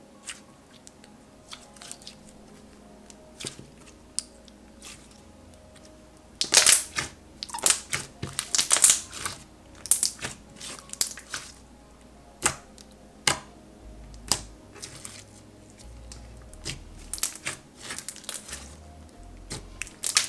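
Thick clear slime being squeezed and pressed by hand, giving crackly bubble pops and squishes, densest and loudest about six to nine seconds in. Faint background music runs underneath.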